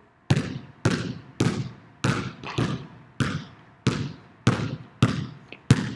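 Basketball dribbled fast on a hardwood gym floor: about ten sharp bounces, a little under two a second, each echoing around the large gym.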